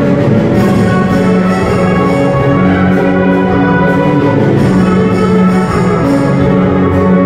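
Live symphony orchestra playing, brass prominent, in sustained chords that change about every second.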